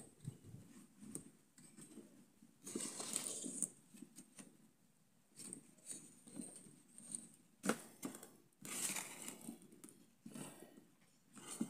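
Dried tingui seed-pod husks and sticks being handled and fitted together: faint, irregular dry rustling and crinkling with light taps, and one sharper click about two-thirds of the way through.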